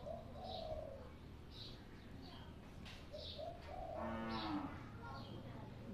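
Faint background birdsong, short high chirps repeating about once a second, with a cow mooing briefly about four seconds in.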